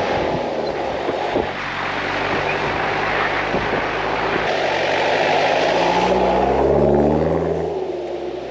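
Four-wheel drive driving on soft beach sand, heard from a camera mounted on the outside of the vehicle: steady wind rush and tyre noise over the engine. Near the end the engine rises in pitch as it picks up speed.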